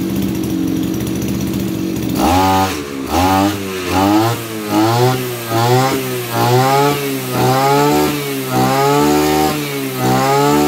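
Maruyama BigM KC26 brush cutter's 26 cc two-stroke engine idling steadily, then, about two seconds in, revved up and back down over and over, about once a second, as the throttle is squeezed and released.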